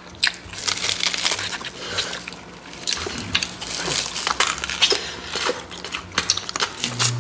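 Close-miked wet smacking, sucking and crackling as soy-sauce marinated raw crab is eaten, the meat sucked and squeezed out of the soft shells in many quick clicks.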